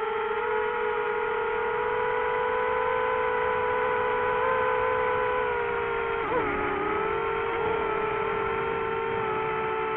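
DJI FPV drone's motors and propellers (Master Airscrew bullnose 5x4.5 props) whining steadily in flight. The pitch dips and wobbles sharply about six seconds in, then settles slightly lower.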